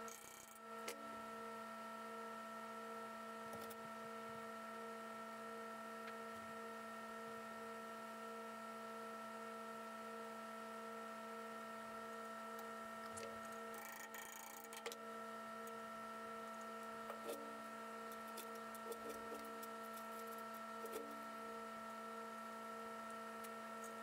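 Steady electrical hum made of several fixed tones, one of them pulsing faintly and regularly. A brief scrape and a few light knocks come about midway and later.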